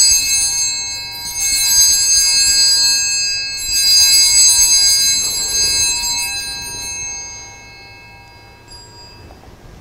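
Altar bells rung three times at the elevation of the chalice after the consecration. The high ringing dies away over several seconds.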